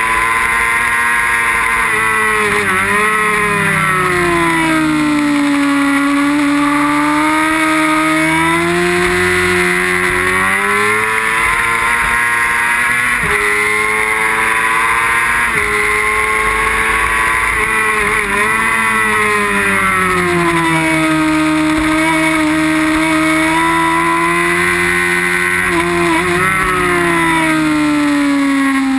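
Inline-four sport bike engine at racing revs, its pitch climbing and falling over the lap as the bike accelerates, shifts gear and slows for corners, with a steady rush of wind noise.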